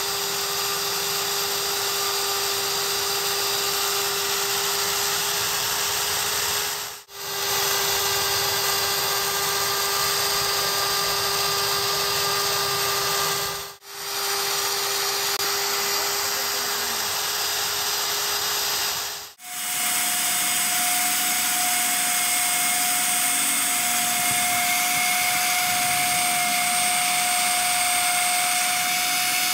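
Bench drill running with a steady whine as a small bit drills holes into the ring groove of an aluminium truck engine piston. The sound drops out briefly three times, and after the third dip, about two-thirds of the way in, the whine is higher in pitch.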